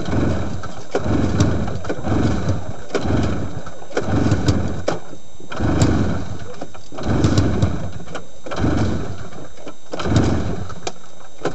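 Two-stroke snowmobile engine cranked over again and again by its recoil pull-starter, about eight pulls at roughly one every second and a half, never catching. The engine is flooded, and it is being pulled over with the fuel line off to clear the fuel from the crankcase.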